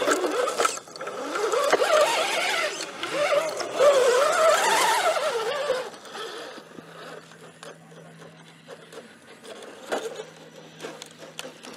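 Scale RC rock crawler's electric motor and gear train whining, the pitch rising and falling with the throttle as it climbs rock. About six seconds in it drops much quieter, leaving a faint steady hum and small clicks.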